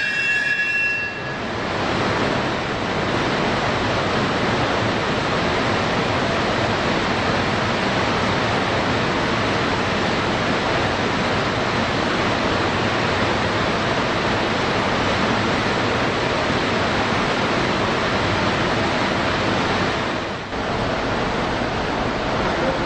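Sleeper express train rolling along the rails, a steady, even rumble of wheels and cars that holds through the whole stretch. High steady squealing tones die away about a second in.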